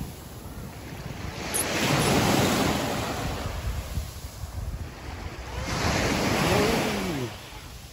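Sea waves washing onto a beach, the surf swelling twice, about two seconds in and again around six seconds, with wind buffeting the microphone.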